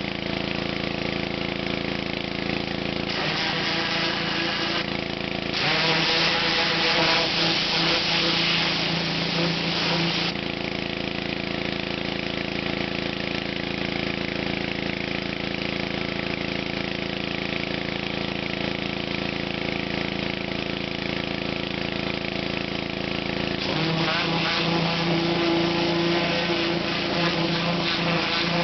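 Honda 11 hp pressure washer engine running steadily, with the high-pressure water jet hissing whenever the spray gun is triggered: briefly about 3 s in, longer from about 6 to 10 s, and again from about 24 s on.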